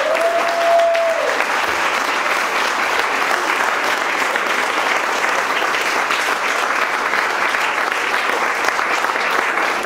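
A crowd of seated guests clapping steadily, with one long held shout in the first second.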